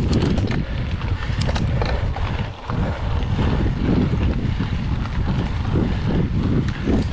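Wind buffeting the microphone of a mountain bike's action camera while riding, a loud gusty rumble mixed with tyre and bike noise over a rough road surface. A few sharp clicks come in the first two seconds.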